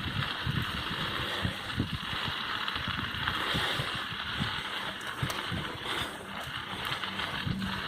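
A mountain bike being ridden over rough dirt trail: a steady rush of wind over the camera microphone, with irregular low knocks and rattles from the bike bumping along.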